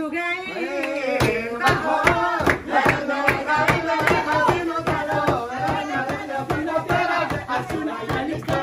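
A group of people singing together with rhythmic hand clapping. The clapping starts about a second in and keeps an even beat of about two claps a second.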